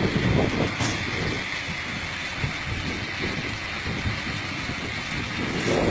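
A vehicle running: a steady rumble with hiss.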